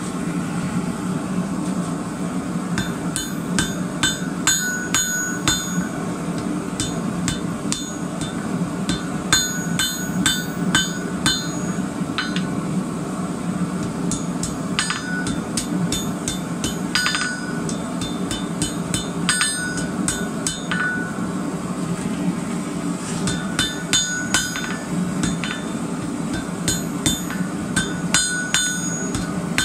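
Blacksmith's hand hammer striking a red-hot rebar wheat twist on a steel anvil, in quick runs of blows with short pauses between, each blow followed by a bright ring from the anvil. A steady low hum runs underneath.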